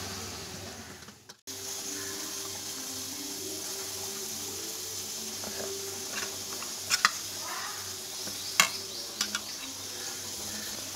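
Steel spoon stirring a wet masala batter in a steel bowl, with a few light clinks of spoon on bowl, over a steady hiss.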